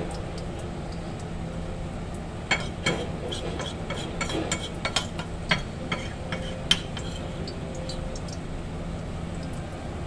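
Battered tempeh frying in hot oil in a wok, with a steady sizzle. A run of sharp clicks and ticks comes between about two and a half and seven seconds in.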